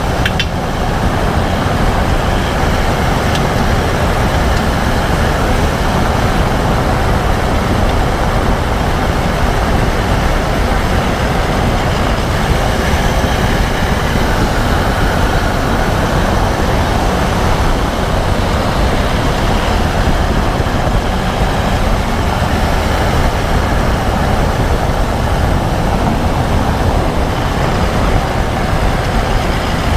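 A 2014 Range Rover Sport SDV8 with its 4.4-litre V8 diesel running, giving a steady, loud vehicle noise throughout.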